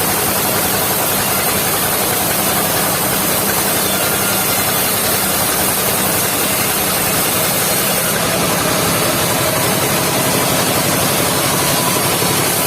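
The engine of a mobile circular-saw sawmill running steadily. Its sound shifts about eight seconds in.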